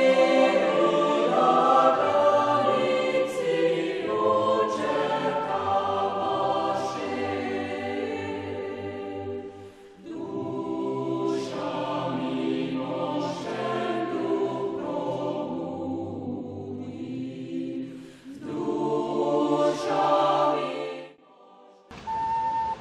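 Slow choral music: a choir singing sustained chords in long phrases, with a short break about ten seconds in. It stops near the end, and a single held flute-like note starts just before the close.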